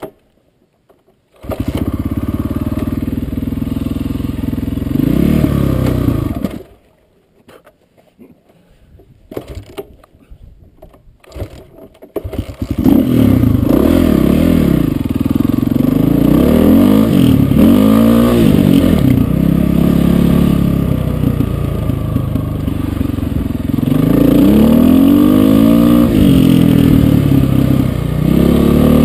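Dirt bike engine catching a little over a second in, running and blipped once, then dying about six seconds in. After a few seconds of quiet it starts again about twelve seconds in and runs on, revving up and down repeatedly as the bike rides through sand.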